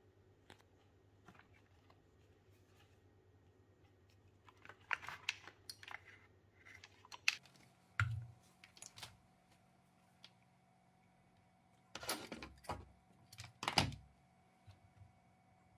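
Faint clicks, taps and rustles of small parts being handled on a workbench: a plastic fuel tank and silicone fuel tubing being picked up and set down, coming in several short clusters with a soft thump partway through.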